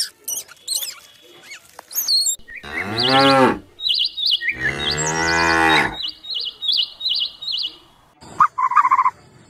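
A cow mooing twice, two long low calls, the second longer, with small birds chirping high around them. A quick run of short calls comes near the end.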